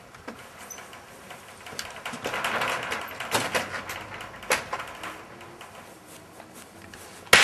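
Rustling with several sharp clicks and knocks over a couple of seconds, then a sudden loud bang at the very end.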